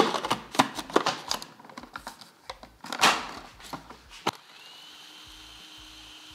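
Plastic clicks and knocks as a food processor's bowl and lid are handled, then, about four and a half seconds in, its motor starts with a short rising whine and runs steadily, chopping garlic, pimento peppers, culantro and ginger into green seasoning.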